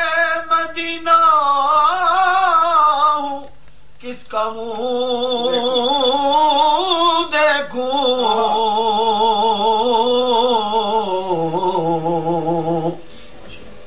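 Urdu naat being sung: long held melodic lines that waver with vibrato and slide between notes, without instruments. There is a short pause about three and a half seconds in, and the singing stops shortly before the end.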